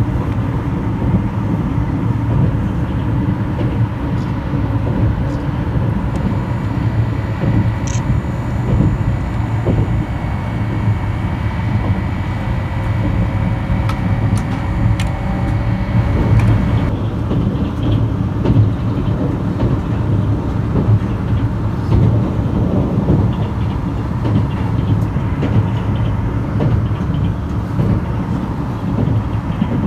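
Limited express Inaho electric train running at speed, heard from inside the passenger car as a steady low rumble of wheels on rail. A faint high steady tone cuts off about two-thirds of the way through.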